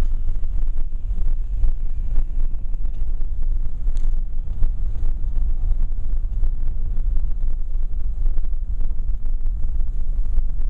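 Wind buffeting the microphone: a loud, gusty low rumble that rises and falls rapidly without letting up.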